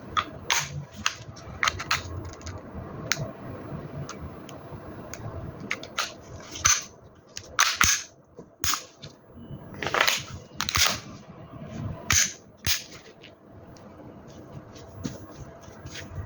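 WE M&P gas blowback airsoft pistol firing single shots at irregular intervals, each a sharp crack. Fainter clicks fall between the shots.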